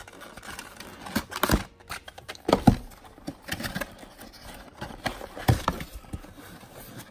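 Cardboard box of a diecast model being opened and its packaging handled: rustling and scraping of card, with several sharp taps and knocks, the loudest about two and a half seconds in.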